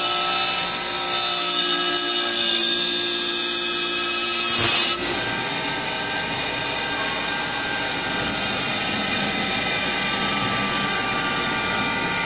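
Automatic CNC wood lathe's high-speed cutter spindles running and cutting a curved profile into a wooden leg blank: a steady multi-tone whine over the rasp of cutting. About five seconds in the sound changes abruptly, becoming slightly quieter and rougher.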